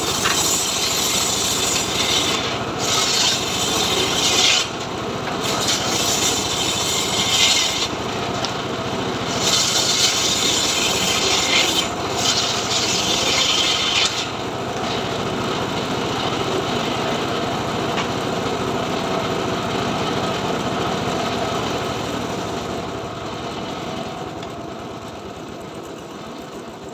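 Homemade circular saw bench ripping a hardwood plank, the blade biting into the wood in several loud, rasping bursts over the first fourteen seconds. Then the blade spins freely with no wood on it, and the sound dies down near the end.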